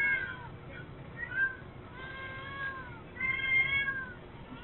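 A cat meowing repeatedly, several drawn-out calls each rising and then falling in pitch, heard through a security camera's thin, band-limited microphone.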